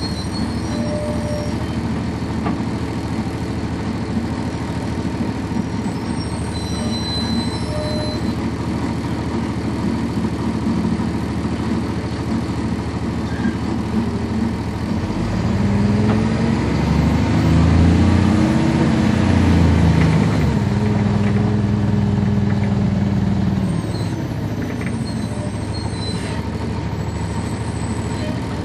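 Inline-six Cummins ISC diesel of a 1999 NovaBus RTS transit bus, heard from on board. It runs steadily and low for about fifteen seconds, then revs up and gets louder, its pitch climbing and dropping back as the ZF automatic transmission shifts. It eases back to a steadier note near the end.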